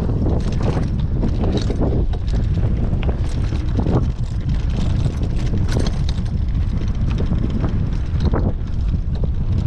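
Strong wind buffeting the microphone: a loud, steady low rumble with irregular gusty crackles.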